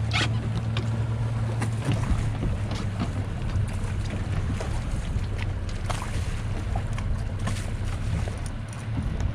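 A boat's engine runs steadily at low speed with an even low hum. Wind and water noise sit around it, with scattered small ticks and splashes.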